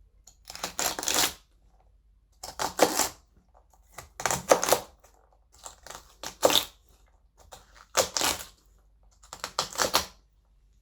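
A knife chopping garlic scapes on a chopping board: six short bursts of quick chopping strikes, each under a second long, with brief pauses between them.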